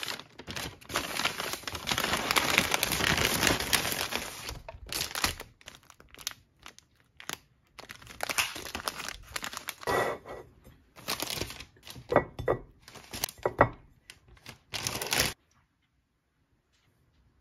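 Crinkling and rustling of something being handled: dense for the first few seconds, then in short separate bursts, stopping about fifteen seconds in.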